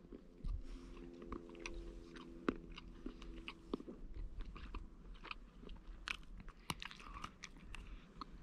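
A person chewing a mouthful of dark chocolate close to the microphone: faint, irregular small clicks and smacks of the mouth. A faint steady hum sits in the background for the first few seconds.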